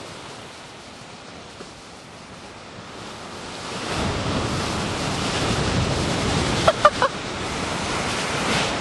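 Ocean surf breaking, heard as a steady rush with wind on the microphone, growing louder about four seconds in as the wave throws over and breaks. Two brief pitched yelps come near seven seconds.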